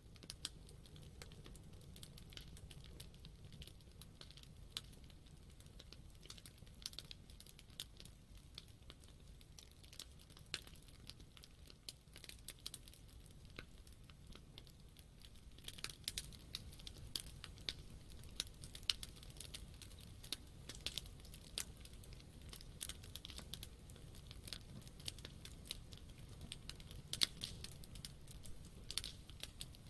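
Wood campfire crackling: irregular sharp pops and snaps over a low steady rumble of the burning fire, with the pops coming more often in the second half.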